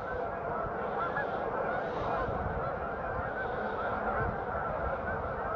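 A large flock of waterfowl honking, many calls overlapping into a steady din.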